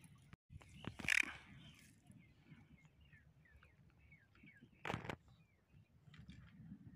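Small birds chirping repeatedly in the background, with two short louder noises, one about a second in and another about five seconds in.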